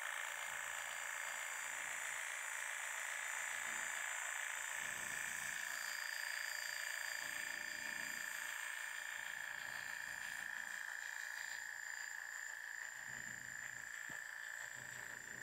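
Electric hair clippers buzzing steadily as they cut short hair at the nape and the side of the head, a little quieter near the end.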